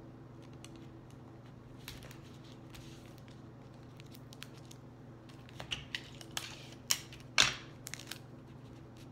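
Taped paper handled and crinkled between the fingers: scattered soft rustles and clicks, then a run of louder crinkles in the second half, the loudest about seven seconds in. A steady low hum sits underneath.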